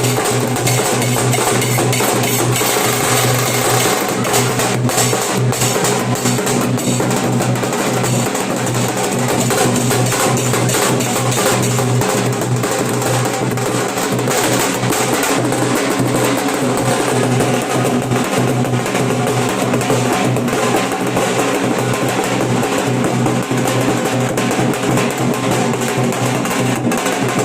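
Nashik dhol drumming: barrel-shaped dhols beaten in a dense, continuous rhythm with rapid rolls.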